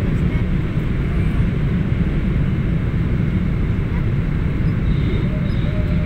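Steady low rumble of engines and rushing air inside a Boeing 777 cabin on approach with the flaps extended.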